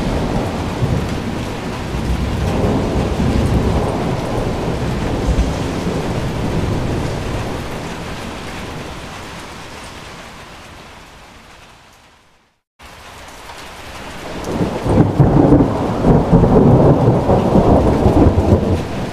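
Heavy rainstorm noise with a deep rumble. It fades away to a brief silence about twelve seconds in, then comes back loud and rough.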